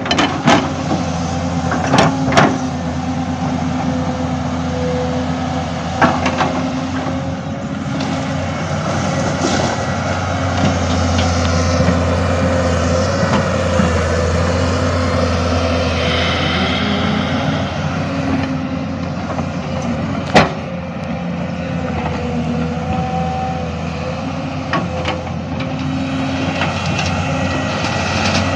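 Excavator engine running steadily, with a thin whine over it and a few sharp clanks or knocks, the loudest about twenty seconds in.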